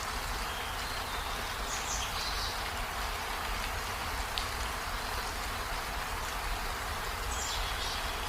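Steady rain falling, with a few short high chirps about two seconds in and again near the end.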